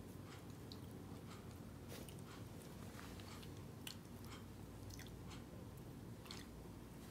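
Faint, scattered wet clicks and smacks of someone eating by hand: chewing, while fingers pull apart roast shawaya chicken on a plate.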